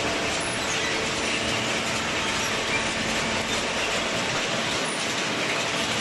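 A baler's steel infeed chain conveyor running, a steady, dense mechanical clatter with a faint steady hum underneath.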